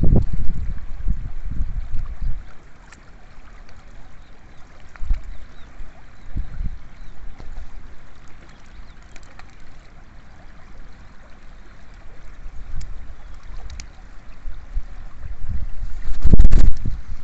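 Running water of a shallow stream with gusts of wind rumbling on the microphone, then near the end a loud burst of a Cayuga duck flapping its wings close by.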